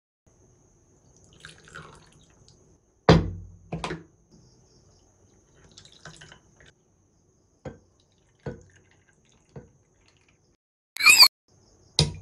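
Coconut water and soft coconut flesh poured into a glass of ice cubes, landing with two heavy plops about three seconds in. Spoonfuls of syrup follow as a few scattered drips, then a short, bright clink near the end.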